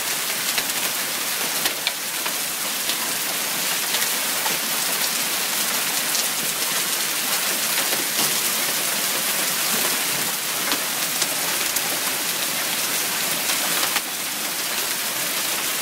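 Heavy downpour of rain mixed with half-inch hailstones: a steady, dense hiss of water pelting down, with occasional sharp ticks of hailstones striking.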